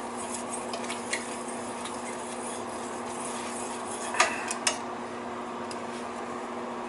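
A spatula stirring rice in a stainless steel pot, with a few light knocks against the pot, two of them about four seconds in, over a steady low hum.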